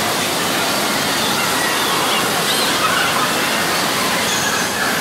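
Steady rushing-water noise filling an indoor water park's pool hall, with faint distant children's shouts now and then.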